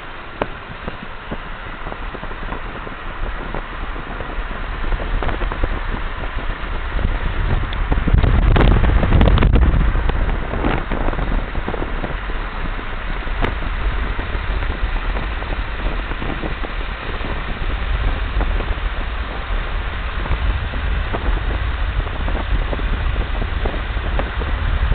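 Wind and road noise from a moving car with an open window: a steady rushing with a low rumble, swelling into a louder burst of wind buffeting on the microphone about eight to ten seconds in.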